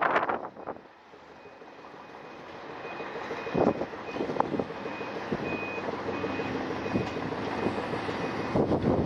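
Reversing alarm on a heavy earthmoving machine beeping in an even, repeated string over the machine's engine, which grows steadily louder as it backs closer. A burst of wind on the microphone comes right at the start.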